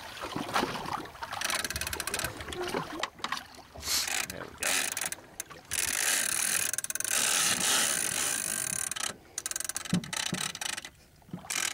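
Shimano Tiagra big-game reel being worked during a shark fight: mechanical clicking and gear noise, with a stretch of loud hissing rush in the middle.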